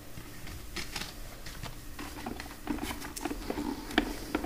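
Handling noise from a plastic Blu-ray case and discs being picked up and moved: scattered small clicks, taps and rustles, with a sharper click about four seconds in.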